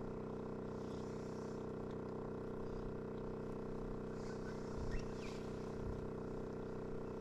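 Boat motor running steadily, a low even hum.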